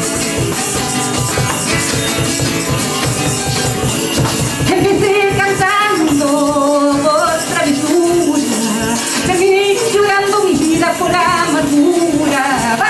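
Latin American folk song played on a strummed acoustic guitar with a large hand drum keeping a steady beat. A woman's singing voice comes in about four and a half seconds in.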